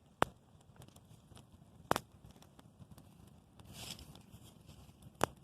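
Wood campfire crackling, with many small ticks and three sharp pops from the burning wood, and a brief hiss about four seconds in.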